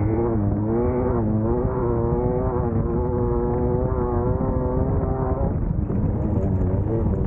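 Class 1600 off-road race buggy's air-cooled Volkswagen engine running hard at fairly steady revs over a constant low rumble, its pitch dipping briefly a few times. Past the middle the steady engine note gives way to a rougher rattling and rumbling.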